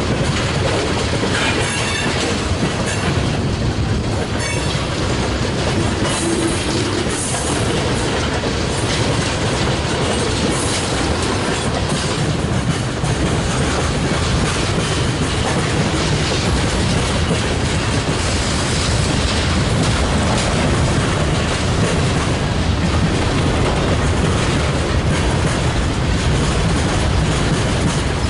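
Freight train of tank cars, flatcars and boxcars rolling past close by: a steady, loud rolling noise of steel wheels on rail.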